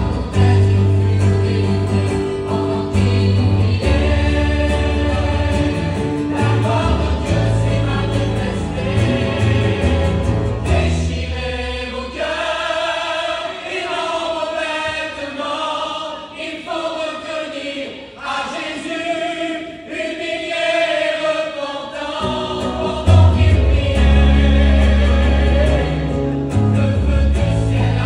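A mixed youth choir singing a gospel hymn in harmony, over guitar accompaniment with deep bass notes. About eleven seconds in, the accompaniment drops away and the voices carry on alone for about ten seconds before the bass returns.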